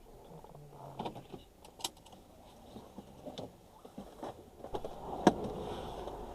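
Heavy knocks from the front right suspension of a 2012 Mazda CX-5 on small road bumps: several sharp knocks over road rumble, the loudest about five seconds in. A new strut mount, strut bearing and front control-arm bushing have not cured the knock; the owner suspects the large rear control-arm bushing.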